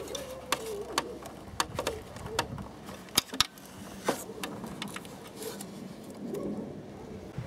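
Hands working behind a motorcycle headlight, handling its wiring and grey rubber bulb socket, make a string of irregular sharp clicks and taps. The loudest are a pair just after three seconds in.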